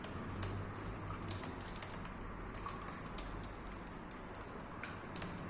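Faint scattered light clicks and rustling of cloth being handled, over a low steady hum.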